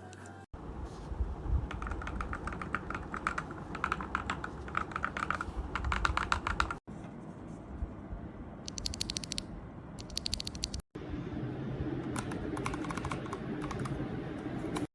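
Typing on a mechanical keyboard fitted with Akko V3 Cream Pro switches: a steady, dense clatter of keystrokes in three takes, with short cuts between them.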